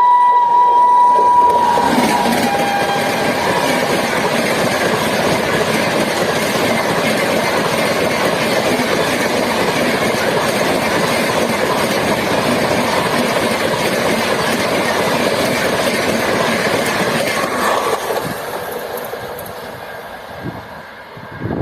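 A WAP7 electric locomotive's horn ends its steady note with a drop in pitch as the locomotive passes. Then the express's coaches rush past at about 130 km/h in a loud, continuous roar of wheels on rail that fades away over the last few seconds.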